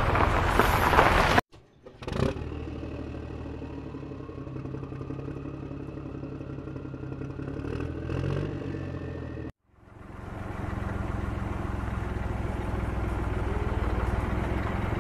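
Truck engine sound running steadily, cut off abruptly twice: about a second and a half in and again about nine and a half seconds in, then picking up again. A brief sharp knock comes just after the first cut.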